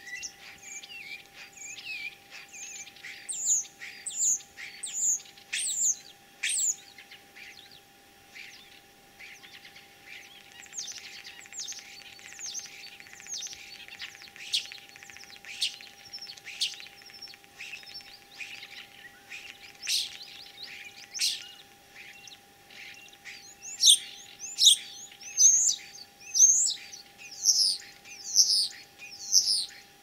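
Common starling singing a varied song of whistles, clicks and rattling notes. Runs of loud, repeated high notes, about two a second, come a few seconds in and again near the end.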